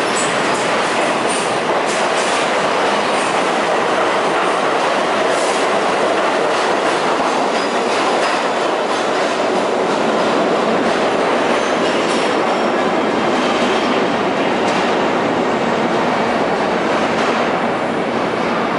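R42 subway refuse train running out of the station into the tunnel: a steady, loud rumble of steel wheels on rail, echoing in the underground station, with rapid clicks over the rail joints in the first few seconds.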